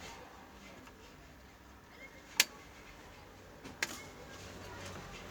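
Two sharp clicks of small hand tools working on a circuit board, about a second and a half apart, the first much louder, with a few faint ticks around them.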